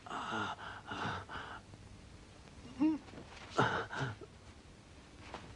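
A man gasping and groaning in short, strained bouts, about four of them, with a brief pitched moan in the middle.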